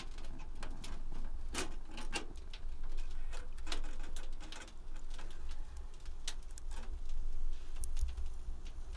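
Firewood burning in a small Pomoly camping wood stove, crackling with irregular sharp pops, several of them louder ones about one and a half, two, three and a half and six seconds in.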